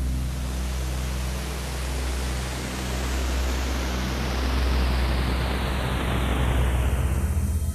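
Spaceship sound effect: a rushing noise that grows steadily duller over several seconds, like a craft passing by, and cuts off abruptly, over a steady low hum.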